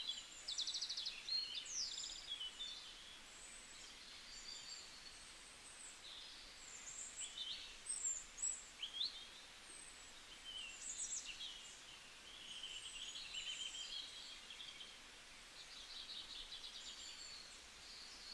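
Several small songbirds calling and singing: short chirps, rapid trills and quick up-and-down whistles from more than one bird, coming and going over a faint steady hiss.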